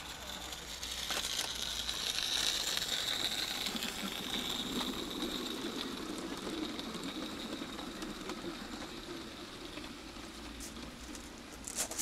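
Live-steam garden railway locomotive running past: a hiss of steam and a rumble of the train on the rails. It grows louder about a second in, then slowly fades.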